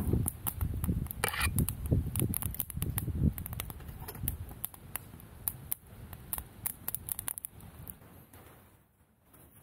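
Small fire burning under a steel canteen on a camp grill, crackling with scattered sharp pops, over a low rumble that fades away in the first few seconds.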